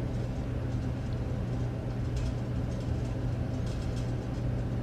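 A steady low background hum with faint hiss and a few soft ticks.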